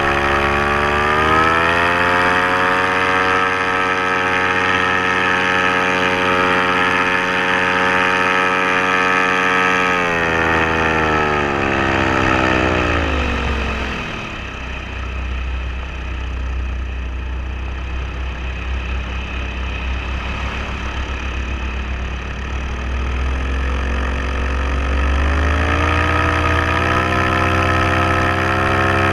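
Paramotor engine and propeller running at high throttle, throttled back about ten seconds in to a low idle with a rush of wind noise, then opened up again near the end.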